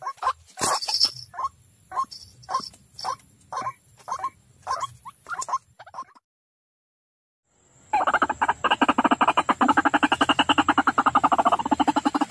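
White-breasted waterhen calls: separate notes about two a second, then after a short silent break a fast, dense chattering run of calls.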